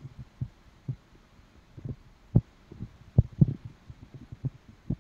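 Wind buffeting a phone's microphone: irregular low rumbling thumps coming in gusts, with short quiet gaps between them.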